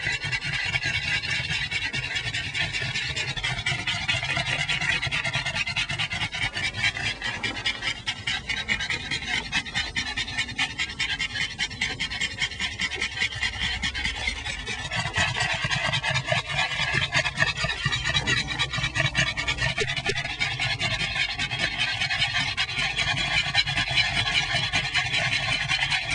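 Pug panting fast and steadily, tongue hanging out.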